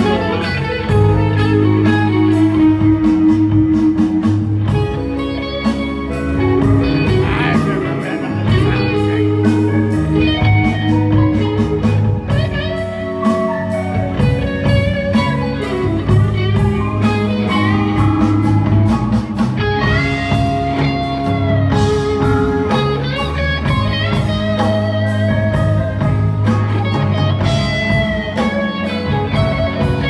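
Live blues-rock band playing through the stage PA: an electric guitar lead with bent, held notes over a steady bass line and a drum beat.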